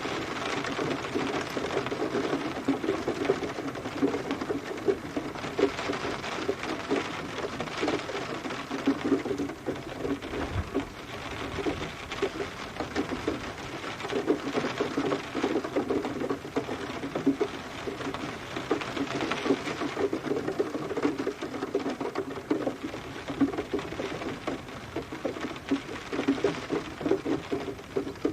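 Steady rain, a dense patter of drops striking a surface, swelling and easing in strength every few seconds.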